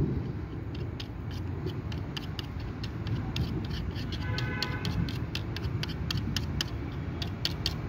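Light, irregular ticks of a tester screwdriver's tip against a metal laptop hinge bracket as adhesive gum is spread on it, over a steady low background rumble.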